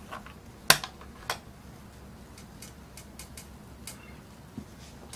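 Screw cap of a plastic drink bottle being twisted open: a sharp click a little under a second in, a second click soon after, then a few light ticks.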